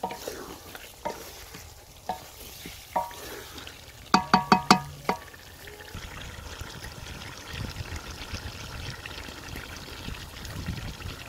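Wooden spoon stirring chicken in a large metal pot, knocking the pot about once a second so it rings briefly, then five quick loud ringing knocks about four seconds in. After that, a steady sizzle of the chicken frying in the oil and spice paste.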